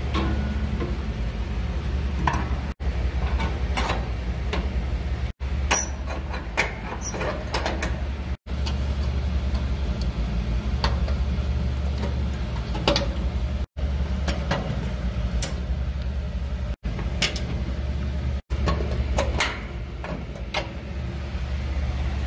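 Scattered light metal clinks and taps as stainless steel gas-grill burner tubes are slid onto their gas fittings and dropped into place in the firebox, over a steady low rumble.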